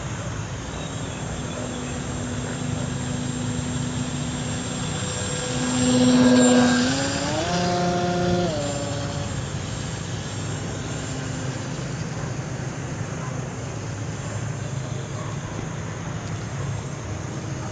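Electric motor and propeller of a small foam RC plane buzzing in flight. It grows loud as the plane passes close about six seconds in, its pitch steps up for a moment and falls back, then it fades as the plane flies off.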